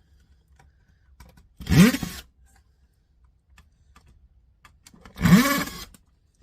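Cordless power screwdriver spinning up in two short bursts, its motor pitch rising each time, backing out the screws that hold a cassette deck unit. Faint small clicks between the bursts.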